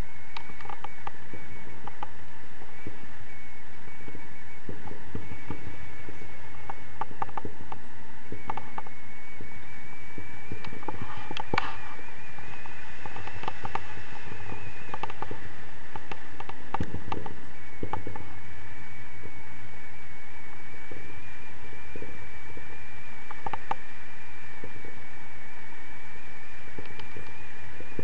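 Wind rumbling and buffeting against the camera and its housing in flight under a tandem paraglider, with scattered clicks and a thin, slightly wavering high tone that drops out now and then.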